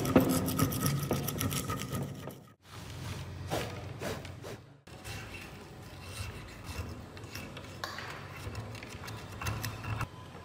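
Metal scraper blade scraping caked, dried soil off a rusted padlock, a dense gritty scrape. It breaks off twice early on and then goes on more quietly in short strokes.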